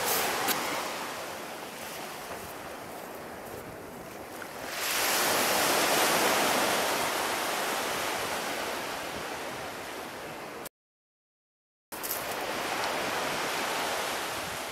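Sea surf breaking and washing up on a sandy beach, a steady rush that swells louder about five seconds in. The sound cuts out completely for about a second near the end, then the surf resumes.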